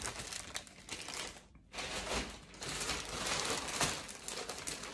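Plastic carrier bag rustling and crinkling as a hand rummages inside it, in two stretches with a short pause about a second and a half in.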